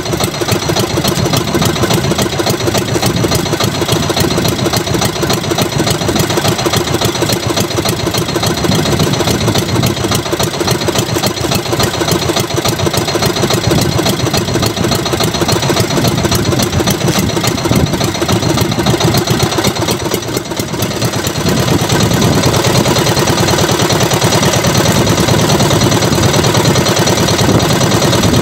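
Small boat's engine running steadily at idle, with a brief dip in loudness about two-thirds of the way through.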